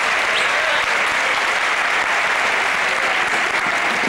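Crowd applauding steadily, a dense continuous clapping with no break.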